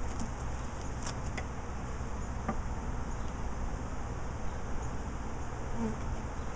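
A mass of Italian honeybees buzzing steadily around an opened top bar hive, stirred up by the inspection, with a few faint clicks in the first couple of seconds.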